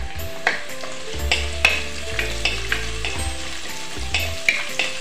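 Sliced onions, green chillies and whole spices sizzling in hot oil in a deep nonstick pot, stirred with a wooden spatula that scrapes against the pot in repeated, irregular strokes.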